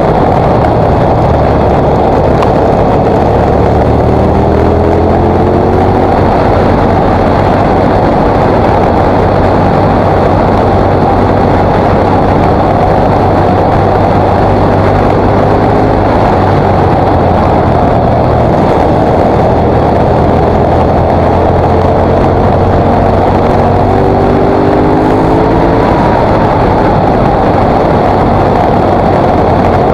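KTM 950 SMR's V-twin engine running under way with heavy, constant wind rush on the microphone. Its pitch rises as it accelerates out of bends a few seconds in and again near the end.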